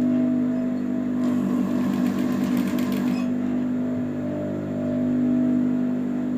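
Juki industrial sewing machine with its motor humming steadily, and a short run of fast stitching about a second in, lasting about two seconds, as fabric is fed under the needle.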